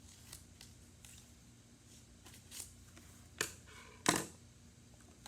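Paper cut-outs being handled and glued down: soft paper rustles and a few short, sharp taps, the loudest about four seconds in.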